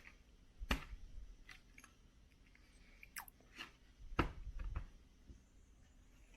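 A person chewing and biting food close to the microphone: soft mouth sounds broken by short sharp clicks, the loudest about three-quarters of a second in and again around three and four seconds in.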